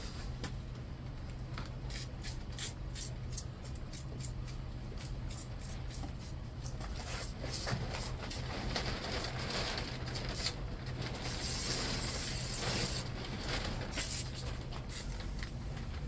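Rapid clicking for the first several seconds, then an aerosol can of PB Blaster penetrating oil sprayed in hissing bursts, strongest in the second half.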